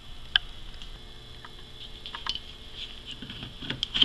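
Scattered light plastic clicks and soft knocks from a Bosch 12-volt lithium-ion impact driver being handled while its motor is off, with a cluster of clicks and a sharper click near the end as its battery pack is gripped.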